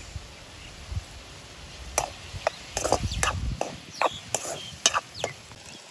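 Wooden spatula stirring chopped tomatoes, shallots and curry leaves in a metal kadai, knocking and scraping against the pan several times from about two seconds in.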